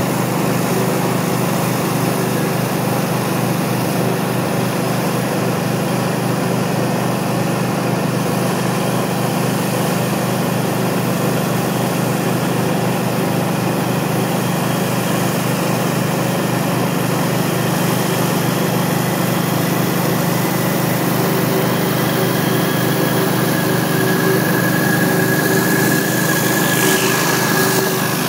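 Hot-water pressure washer running steadily: a constant engine drone under the hiss of high-pressure jets from a rotary surface cleaner spinning over concrete.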